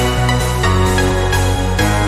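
Background music: electronic track with a steady beat and sustained synth notes.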